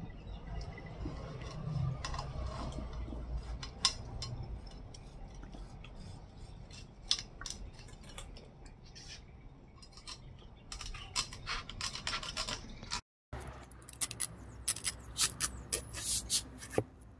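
Cleaver blade scraping and slicing through a wolf herring along its backbone on a wooden board, filleting the fish, with occasional light knocks. The scratchy strokes come thick and fast in the second half.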